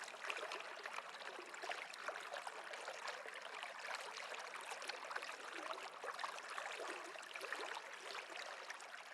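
Running water of a small stream: a steady rush with many small splashes and gurgles.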